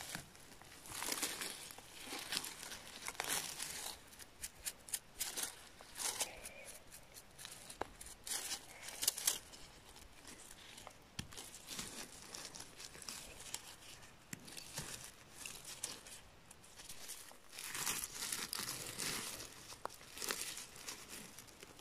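Gloved hands rustling and tearing through moss, pine needles and low shrubs while picking chanterelle mushrooms, in irregular bursts, with a few small sharp clicks.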